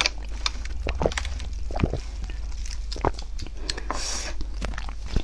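Scattered small clicks and taps of eating and handling food at a table: a sip through a straw, then food containers being touched, with a short rustle about four seconds in. A low steady hum runs underneath.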